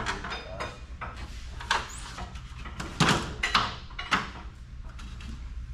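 A series of sharp knocks and clanks from shop work, about five over a few seconds, each briefly ringing, over a low steady hum.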